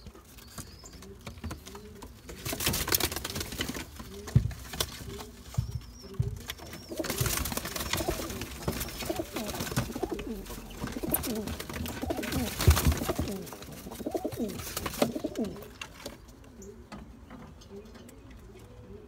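Tippler pigeons cooing, repeated low rising-and-falling coos throughout, broken by several louder stretches of noise with thumps.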